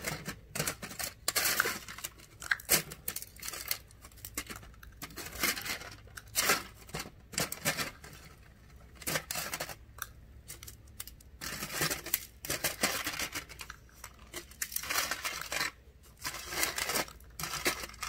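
Tweezers and a fork scraping, tapping and picking at small items on a foil-lined aluminium tray, the foil crinkling: a busy run of irregular quick scratches and clicks, easing off briefly about eight seconds in.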